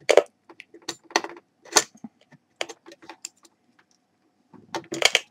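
Irregular metallic clicks and small rattles as a CB microphone's four-pin plug is fitted and tightened into a microphone tester's socket and the handset is handled, with a denser cluster of knocks near the end.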